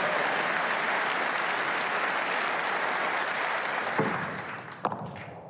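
Snooker audience applauding a pot, dying away over the last second or so. Two sharp clicks come through as it fades.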